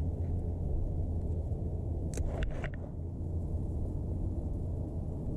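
Steady low rumble with a few short sharp clicks a little after two seconds in.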